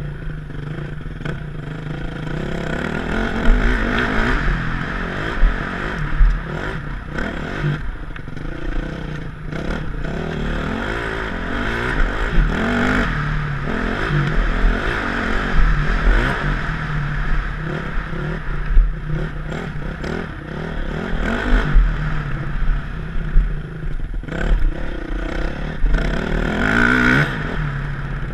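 Four-stroke dirt bike engine revving up and down as the bike is ridden hard over a rough dirt track, heard from a helmet-mounted camera. Frequent sharp knocks and clatter come from the bike over bumps.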